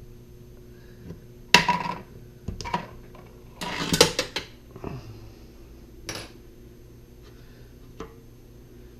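Metal faucet parts and tools clattering and clinking as they are handled and set down on a hard surface: a cluster of sharp knocks, the loudest about one and a half and four seconds in, with lighter clinks later on.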